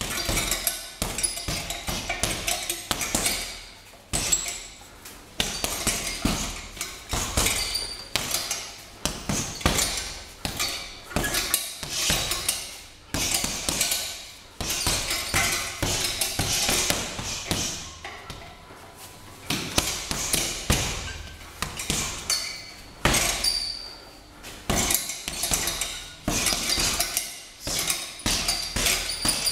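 Bare fists striking a hanging heavy punching bag in fast flurries, each a quick run of thuds and slaps, with short pauses between combinations.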